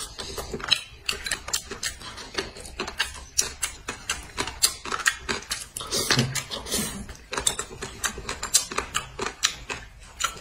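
Crunchy chewing of stir-fried melon rind: a rapid, irregular run of crisp crunches, several a second.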